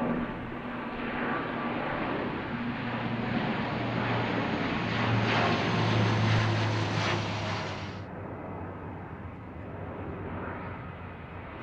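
Low-flying jet airliner passing over, its engine noise building to a peak about six seconds in. The upper part of the noise cuts off abruptly about eight seconds in, leaving a fainter rumble.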